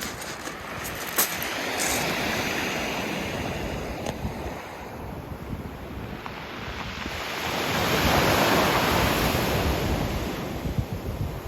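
Sea waves breaking and washing up a pebble beach, the wash swelling twice, the bigger surge about eight seconds in, with wind buffeting the microphone.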